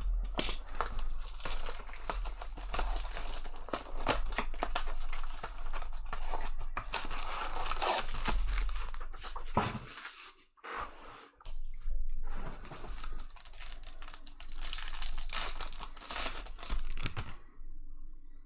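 Trading-card pack wrappers being torn open and crumpled, a dense run of tearing and crinkling in bursts, with a short break about ten seconds in.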